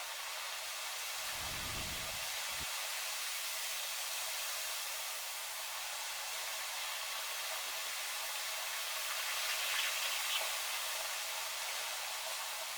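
Steady hiss of heavy rain with strong wind, with a brief low rumble between one and three seconds in.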